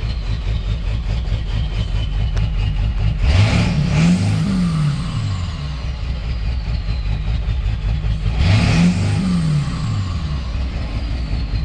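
7.3-litre V8 diesel truck engine idling roughly with a miss, blipped up briefly twice, about three seconds in and again about eight seconds in, each rev rising and dropping straight back to idle. The owner suspects a bad injector not spraying right at idle.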